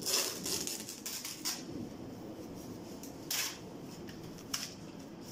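Packing materials being handled: a few short rustles and light knocks over a low room background.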